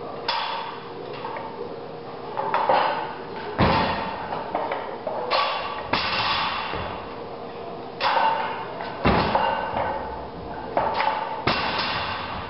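Loaded barbell with rubber bumper plates being lifted and set down on a rubber gym floor during power cleans. There are two heavy thuds about five seconds apart, mixed with sharper metallic clanks from the bar and plates.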